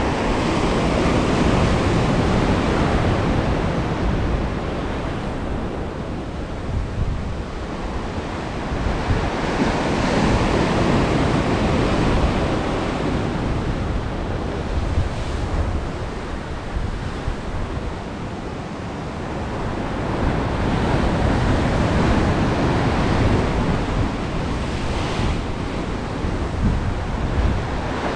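Ocean surf washing onto the shore, its sound swelling and easing over several seconds at a time, with wind buffeting the microphone.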